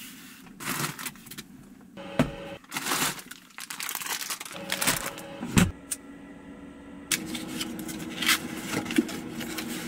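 Rustling, clicking and knocking of handling: food is taken out of a portable fridge, and a cardboard box is pulled open. A steady hum comes in about seven seconds in.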